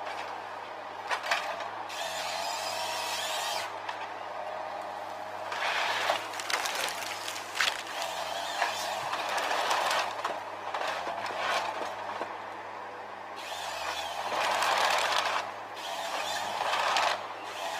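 Forestry harvester's engine running steadily while its harvester head saws and delimbs a tree, with long stretches of crackling, breaking branches and cutting noise and a few sharp cracks.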